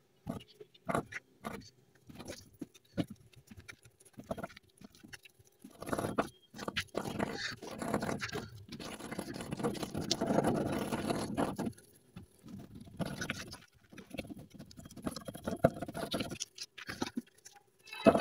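Paintbrush dabbing and scrubbing resin into chopped-strand fiberglass mat laid over a mold: scattered short taps at first, then longer stretches of rapid scratchy brushing.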